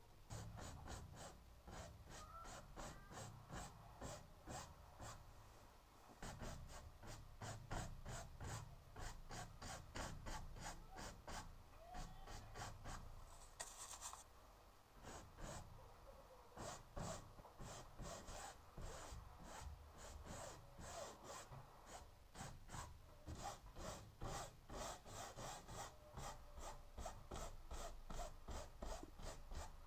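Paintbrush bristles brushing back and forth across textured canvas in short, rapid, even strokes, about three a second.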